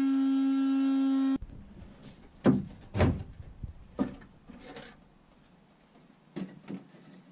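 Oscillating multi-tool buzzing steadily as it cuts through a fiberglass boat liner, stopping abruptly about a second and a half in. Then several sharp knocks and scraping as the cut strip of fiberglass liner is pulled free and handled.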